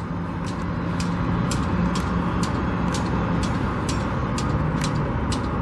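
Steady rumble of engines and road traffic, with a sharp tick repeating about twice a second.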